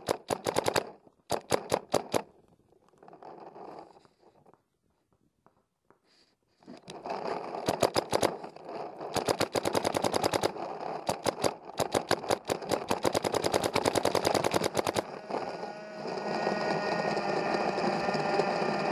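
Electropneumatic paintball marker (Dye DM11) firing: a few short strings of shots, a pause, then long rapid strings of shots, many per second. A steady noise follows near the end.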